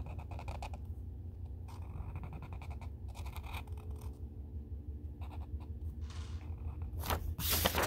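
Felt-tip permanent marker drawing on paper: short, soft scratchy strokes. Near the end, a louder rustle of paper being handled.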